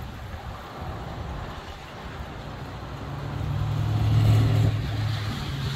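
Gusty wind and rain, with a motor vehicle passing: a low engine hum swells about halfway in, is loudest a little past the middle, and fades near the end.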